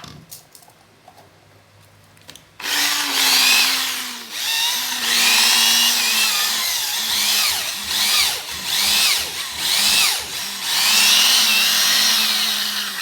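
Hitachi cordless drill running with no load. A few handling clicks come first, then the motor starts about two and a half seconds in and revs up and down repeatedly as the trigger is squeezed and eased.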